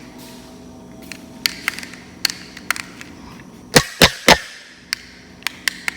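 Sharp clicks of a garage door remote's button pressed again and again, with three louder knocks in quick succession about midway; the remote's batteries are dead, so the opener does not answer.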